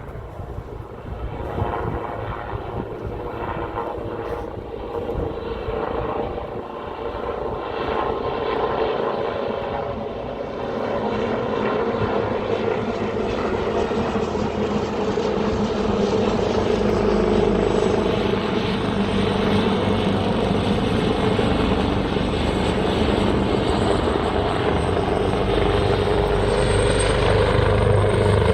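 AgustaWestland AW139 twin-turbine helicopter running, its engines and rotor growing steadily louder. A thin high turbine whine comes in about halfway through and edges upward in pitch.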